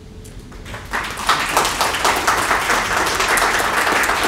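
Audience applause: a few scattered claps that swell about a second in to steady clapping from many hands.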